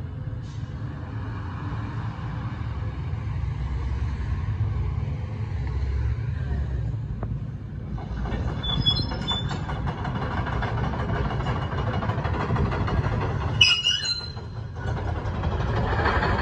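Case CX350B crawler excavator's diesel engine running as the machine travels and turns on its steel tracks. Two brief high-pitched squeals come through, about nine seconds in and again near fourteen seconds.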